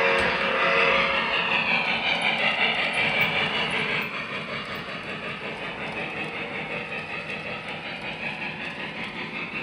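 O-gauge three-rail model passenger train running on the layout track, its wheels rolling and clicking over the rails. The sound drops in level about four seconds in.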